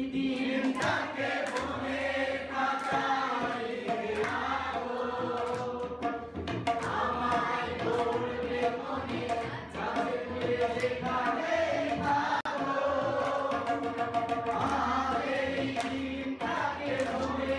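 A man singing a Bengali song with long held notes into a microphone, accompanied by tabla strokes.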